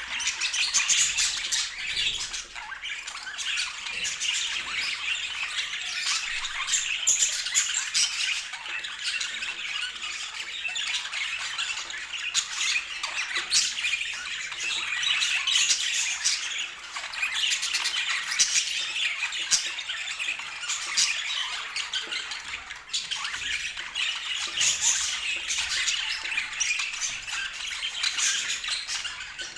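A flock of budgerigars chattering and squawking continuously, many birds calling over one another.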